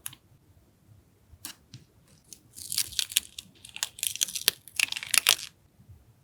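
Paper being handled and torn for a journal collage: a few light taps and clicks, then about three seconds of crisp rustling and tearing of paper.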